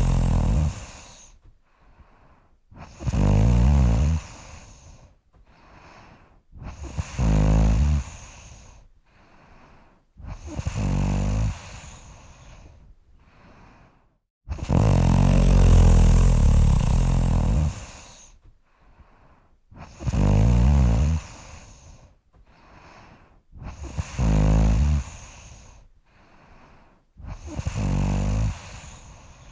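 A person snoring: loud snores on the in-breath about every four seconds, one noticeably longer about halfway, with softer breathing between them.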